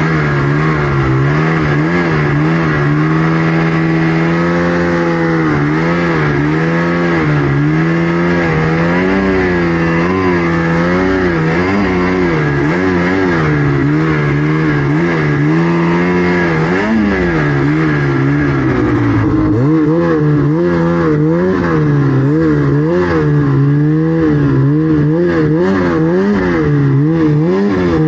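Snowmobile engine working hard through deep powder, its revs rising and falling continuously with the throttle. The revs dip briefly a little past halfway, then climb again, sounding harsher after that.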